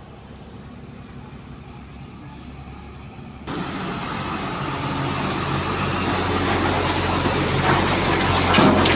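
A heavy vehicle engine running steadily at a low hum. About three and a half seconds in it turns abruptly louder and noisier, and the rumble keeps building.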